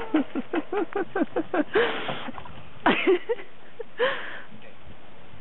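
A dog giving a quick run of short, high yips, about five a second, then three louder, rougher barks or yelps at about two, three and four seconds in.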